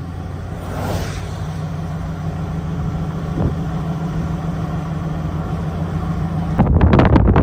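Steady low engine and road drone inside a moving vehicle's cabin. Near the end it switches abruptly to loud wind buffeting the microphone.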